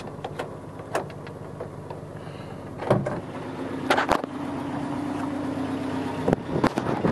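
Nissan Z22 four-cylinder with headers and a Flowmaster exhaust idling, heard from inside the pickup's cab, with a few light clicks. About three seconds in its note gets louder and steadier, and clunks near four seconds in fit the door being opened.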